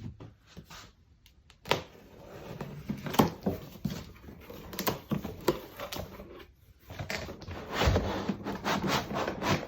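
Shipping package being opened by hand: crinkling, rustling wrapping and scattered knocks of cardboard, busiest near the end.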